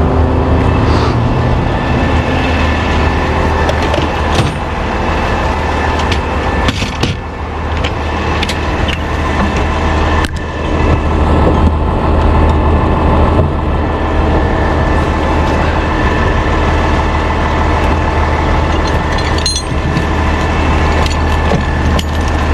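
Wrecker's engine idling steadily, with a few sharp knocks as straps are put on the towed truck's tyres on the wheel lift.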